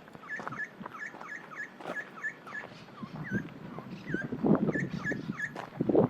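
A rapid series of short, high calls from an animal, about three a second, each dipping and rising in pitch. From about four seconds in there are louder footsteps crunching on a rough trail.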